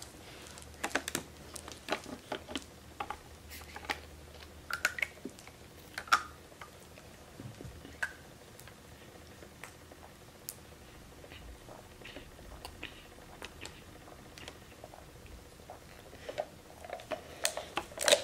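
A thin plastic water bottle crinkling and clicking in the hands as it is drunk from, in scattered short crackles and clicks.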